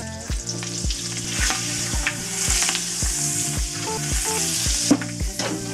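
Chopped onion, celery and garlic going into hot olive oil and melted butter in a large pot and frying with a sizzle that swells about a second and a half in. Background music with a steady beat runs underneath.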